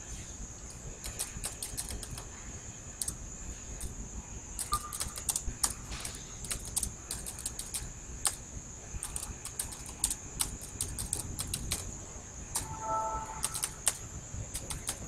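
Computer keyboard being typed on: quick, irregular runs of key clicks with short pauses between words.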